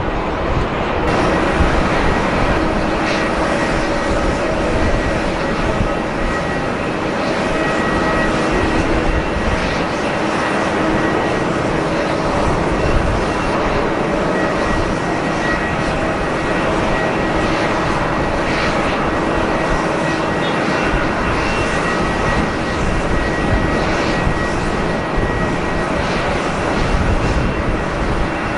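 Boeing 767-300 jet engines running at low taxi power: a steady roar with a constant high whine.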